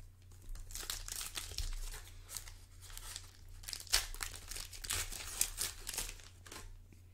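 Foil wrapper of a 2019-20 Panini Prizm basketball retail pack crinkling and tearing as it is ripped open by hand: a run of crackly rustles that stops shortly before the end.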